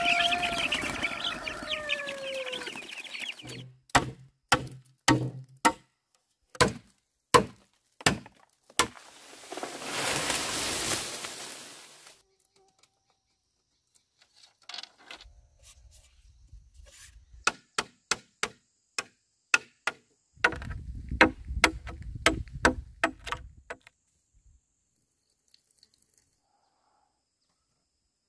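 A rooster crows, its call falling in pitch, then a long run of sharp knocks, singly and in quick clusters, broken by a couple of seconds of swelling rushing noise about ten seconds in.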